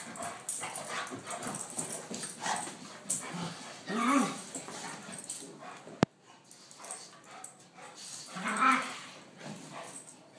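Dogs play-fighting: scuffling with short yips and barks, and two louder outbursts about four and eight and a half seconds in. A single sharp click about six seconds in.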